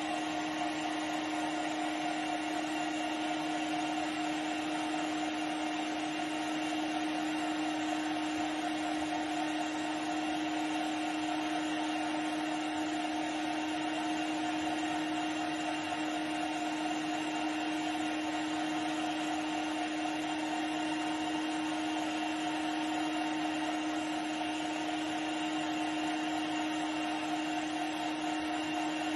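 Electric meat grinder's motor running with a steady, even hum while it grinds tomatoes through the cutting plate.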